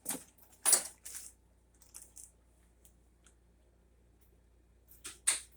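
A few short rustling scrapes, two within about the first second and a louder one near the end.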